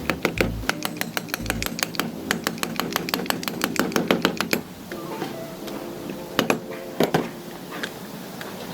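A fast run of sharp knocks, several a second, for about four and a half seconds, then a few single louder knocks near the end, over background music.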